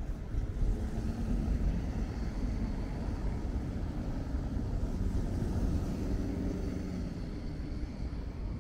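Traffic on a rain-wet city street: a car's engine and tyre hiss rise and fade over a steady low rumble.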